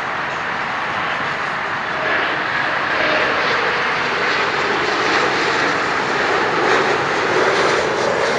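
Jet airliner engines on approach, most likely a Boeing 737-200's low-bypass Pratt & Whitney JT8D turbofans: a steady, loud rushing roar that swells about two seconds in and holds.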